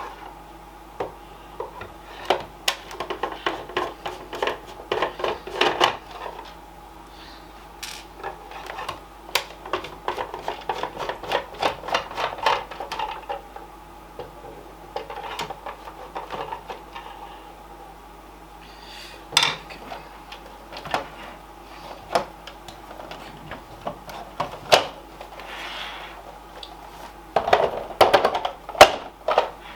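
A screwdriver working the screws of a plastic gaming steering wheel, with irregular clicks, taps and scrapes as the plastic housing and parts are handled. A run of louder plastic knocks comes near the end.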